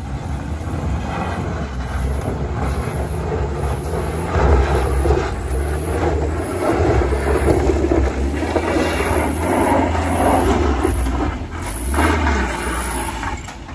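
Engine of a small cab-over box truck working hard up a steep, rough dirt slope, getting louder as it approaches.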